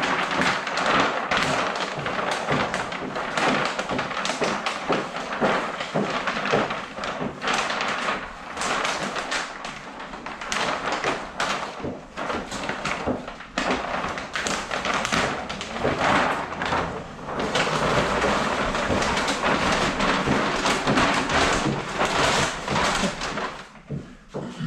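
Vinyl wrap film being crumpled and rolled up by hand, a dense run of crackling and crinkling with scattered taps that comes and goes in loudness.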